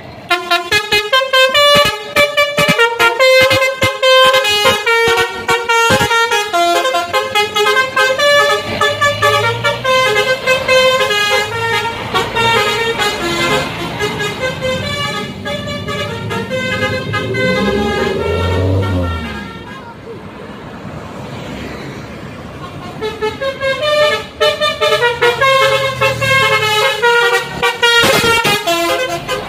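Telolet Basuri multi-tone musical air horn on an Indonesian bus playing fast tunes of quick stepped notes, falling quiet for a few seconds about two-thirds through, then playing again near the end.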